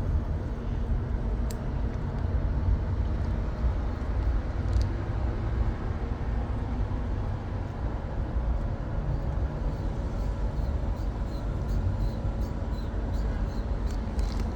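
Automated pizza vending machine working through its preparation cycle: a steady low mechanical hum and whir, with faint regular ticking from about halfway through.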